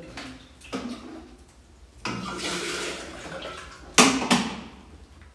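Water running from a kitchen tap into a stainless-steel kettle for about a second and a half, followed by a sharp clunk about four seconds in.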